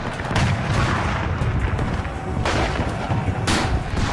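Battle gunfire: a dense, continuous rumble of shots and blasts, with sharper loud reports about half a second in, about two and a half seconds in, and again a second later.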